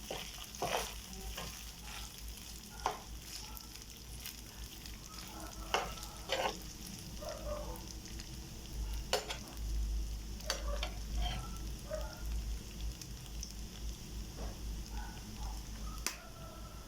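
Rice frying in a pan, sizzling steadily, with now-and-then clicks and scrapes of a utensil stirring it.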